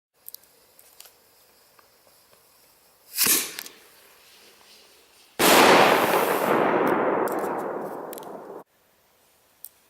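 A 2-inch aerial firework shell fired from a mortar: a sharp thump of the lift charge about three seconds in, then about two seconds later the shell bursts with a loud bang that rumbles on for about three seconds and cuts off abruptly.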